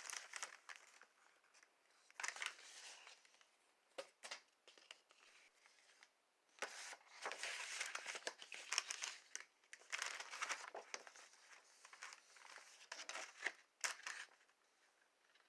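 Faint, intermittent crinkling and rustling of meal-kit packaging being handled, in several short spells with quiet gaps between.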